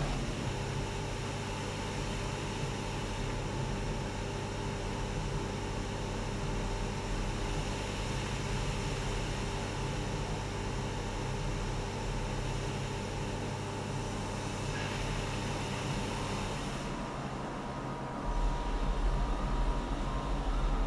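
Steady machinery hum and hiss of a car factory floor, with a few constant tones. Near the end the hum changes and a deeper rumble comes in, louder.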